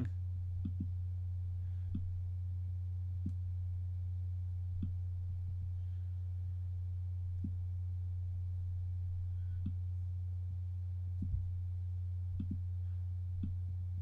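A steady low hum, with about a dozen faint, soft clicks scattered through it: mouse clicks while lines are drawn in a PDF editor.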